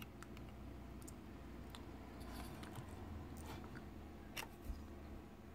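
Faint small clicks and scrapes of a spudger prying at the main circuit board and frame of an opened Sony NV-U70 GPS unit, with two slightly louder clicks late on as the board is worked loose.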